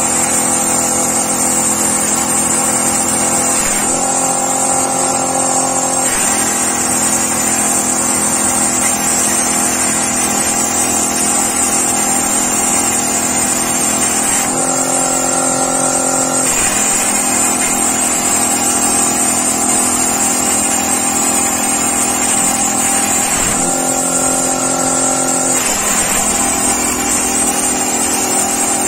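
CNC plasma cutting machine running: several steady whining tones that jump to a new pitch every few seconds as the axes change speed, over a constant high hiss.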